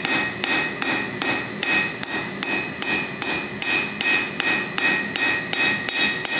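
Hand hammer striking a red-hot bottle opener on an anvil in a steady rhythm, about two and a half blows a second. Each blow leaves the anvil ringing. The smith is hammering a chamfer onto the edge of the opener.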